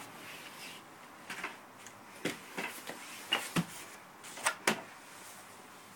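Irregular light knocks and clacks, about seven over a few seconds, the loudest pair near the end, as large painted panels are handled and swapped.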